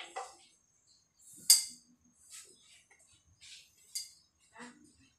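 Scattered clinks and knocks of metal kitchenware being handled, with a sharp clink about one and a half seconds in and another near four seconds.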